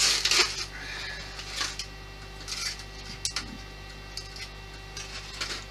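Small model-kit parts being handled on a workbench: a few short rustles, clicks and scrapes, over a steady low mains hum.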